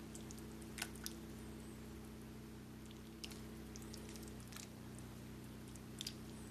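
Ladle stirring thick soup in a crock pot: faint wet squelching with a few light clicks of the ladle against the pot, over a steady low hum.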